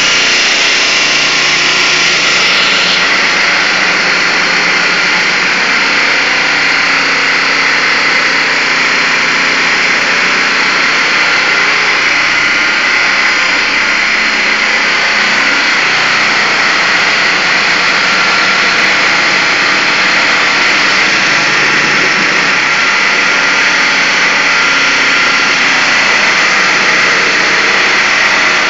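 Diamond-blade concrete saw cutting through a reinforced concrete slab: a loud, steady grinding noise that runs without a break.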